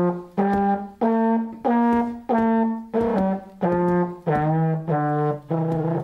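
Trombone played as a string of separate, evenly paced notes, about one every half second or so, the pitch stepping up and down with some notes bending at their ends.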